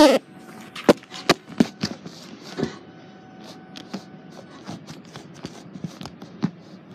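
A loud knock, then a run of sharp, irregular clicks and knocks from an open drink vending machine's door and delivery mechanism being handled.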